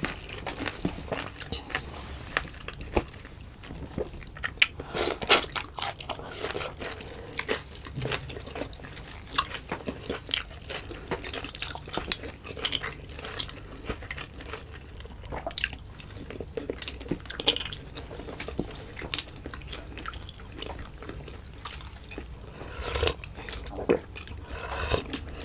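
Close-miked eating: chewing and mouth smacking, with many short sharp clicks at irregular intervals.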